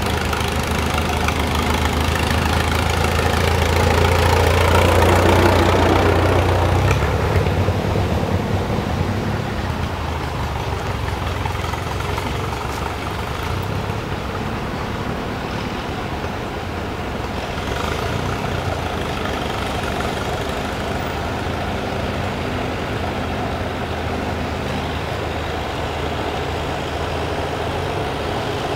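Vintage farm tractor engine running as the tractor drives past, loudest about five seconds in and then easing off. A steady engine sound goes on for the rest of the time as another tractor approaches.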